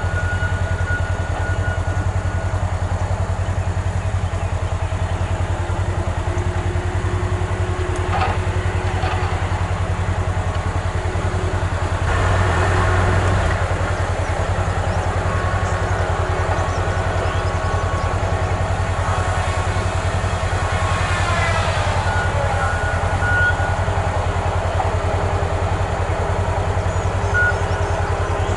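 Diesel logging machinery running with a steady low engine drone. Thin machine whines shift in pitch over it, with a brief swell about twelve seconds in and a falling whine about twenty-one seconds in.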